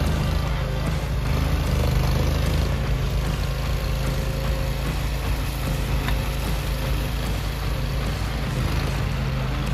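Small engine of a tracked mini skid steer running steadily, a constant low drone, as the loader digs its bucket into a gravel pile and lifts a full load.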